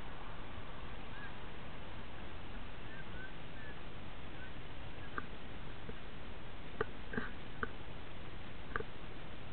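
Steady hiss with a few faint short bird chirps in the first half, then a handful of soft clicks and ticks in the second half.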